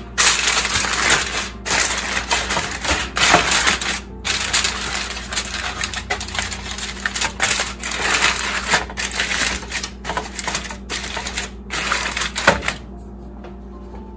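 Aluminium foil crinkling and crackling as hands crumple and press a sheet down over a pie dish, in quick irregular bursts that stop near the end.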